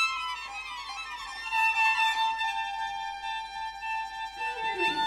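String quartet playing contemporary concert music. High bowed tones slide downward, then settle into a long held high note, and lower cello notes come in near the end.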